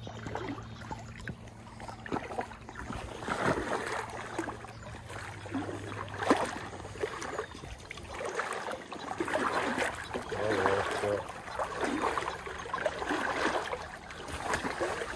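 Shallow stream water rushing and splashing in irregular surges, with a hooked fish splashing at the surface as it is reeled in and landed.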